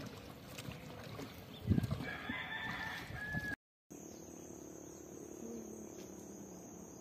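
A rooster crows once, about two seconds in, just after a dull thump. After a brief break in the sound, a steady high thin buzz with a low hum beneath it carries on.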